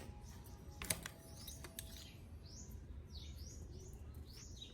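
Birds chirping faintly in the background: many short, high chirps that fall in pitch, coming in quick runs. A single sharp click about a second in.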